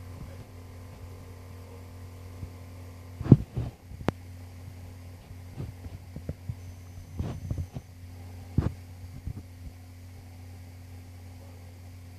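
Steady low electrical hum, broken by a handful of short clicks and knocks; the loudest comes about three seconds in.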